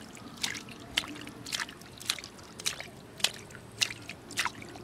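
A hand working in a water-filled mud hole, making short wet squelches and splashes about twice a second.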